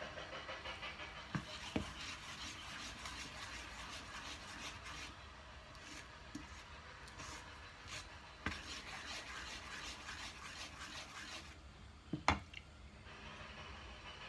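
Kitchen utensil scraping and stirring in a bowl, a steady scratchy rubbing with a few sharp knocks against the bowl; the loudest knocks come about twelve seconds in, just after the scraping stops.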